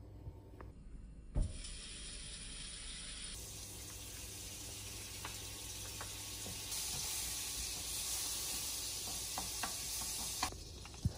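Food frying in hot oil in a pan: a steady sizzle that starts a few seconds in and grows louder, with a few light clicks. A single thump comes about a second in.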